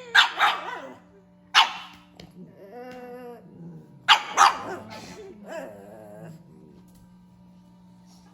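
Pug barking in short, sharp barks, about five in three groups. Between the barks it gives drawn-out, wavering, talk-like whines and grumbles.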